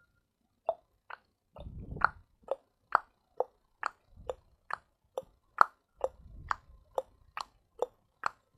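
Water-drip sound effect made by mouth: a steady run of short, pitched plops, about two a second, like drops of water falling.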